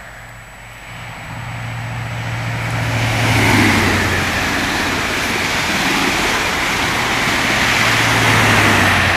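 Running noise of a moving passenger train: a steady rush with a low hum underneath, building up over the first few seconds and then holding.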